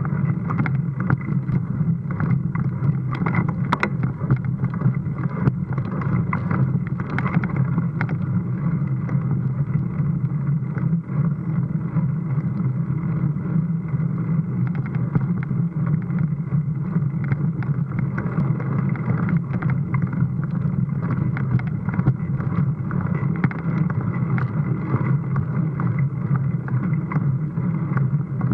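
Mountain bike ridden up a dirt track, heard from a bike-mounted action camera: a steady low rumble of tyres on dirt and wind on the microphone, with frequent small clicks and rattles.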